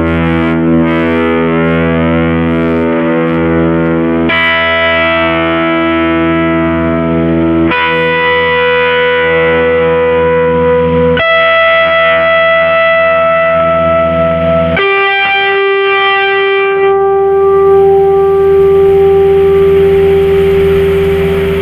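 Electric guitar played through a JOYO Deluxe Crunch distortion pedal: distorted chords struck and left to ring, five in all, changing about every three and a half seconds. About seventeen seconds in, hiss rises in the treble.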